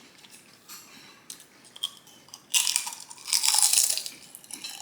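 Potato chips being bitten and crunched in the mouth: a few faint clicks at first, then two loud crunches past the halfway mark, the second drawn out for almost a second.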